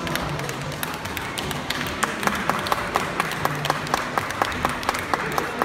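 Spectators clapping in rhythm, about four claps a second, starting about two seconds in over the steady murmur of a crowded hall.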